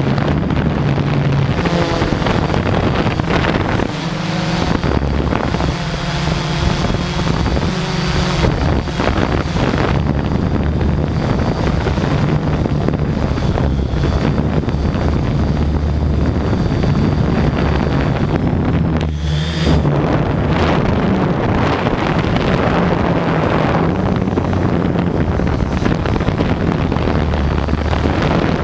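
Quadcopter drone's motors and propellers whirring steadily, the hum shifting in pitch now and then as it manoeuvres, with wind rushing over the microphone.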